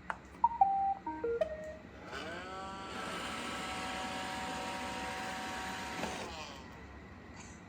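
Roomba robot vacuum playing its short start-up beep tune, then its vacuum motor spinning up with a rising whine and running steadily. About six seconds in the motor winds down as the robot is shut off.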